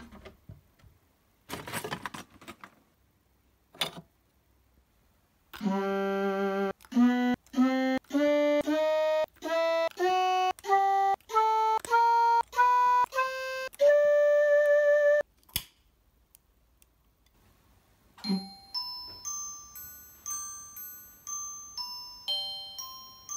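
A few faint handling knocks, then an electronic MIDI instrument sounding a rising run of about a dozen held notes, the last one held longer. After a pause, bright glockenspiel-like notes ring and die away quickly, picking out a melody as touches on the wired baubles trigger MIDI notes.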